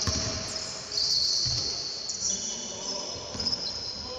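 Basketball game on a wooden court: a few bounces of the ball and high squeaks of sneakers on the floor, in a large hall.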